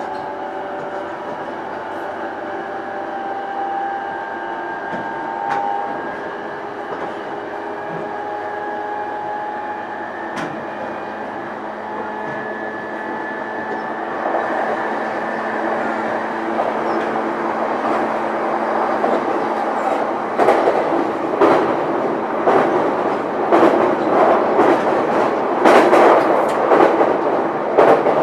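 Interior of a JR East E233-1000 series electric train's motor car running at speed: the steady whine of its VVVF inverter-driven motors over rolling noise. From about halfway the running noise grows louder, and in the last third the wheels clack rhythmically over rail joints.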